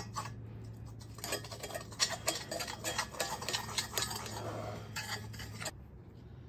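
A metal spoon scraping and clinking against the bottom of a cast iron skillet while spreading smoked beef tallow over it: a quick run of small scrapes and taps that stops abruptly near the end.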